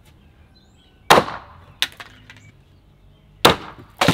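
Hand-forged Viking-style axe chopping through a water-filled plastic bottle into a wooden sawhorse top: two sharp chops about a second and two and a half seconds apart, each with a short fading tail, with a lighter knock between them and another hit near the end.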